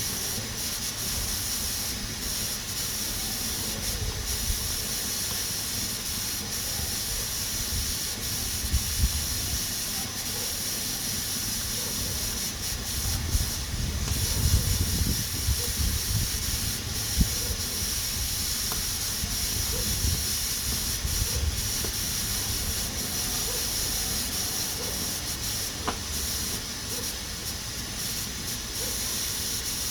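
Pressure cooker hissing steadily as steam escapes through its pressure valve. Under it is an uneven low rumble that swells about halfway through, with a few faint clicks.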